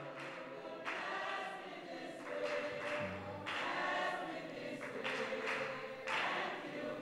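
Congregation singing together as a group of voices, a gospel praise song in the gap between the leader's lines.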